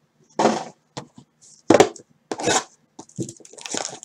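Hands handling trading cards and a wrapped hobby pack on a tabletop: three short knocks and rustles, then quicker light crinkling of the pack wrapper near the end.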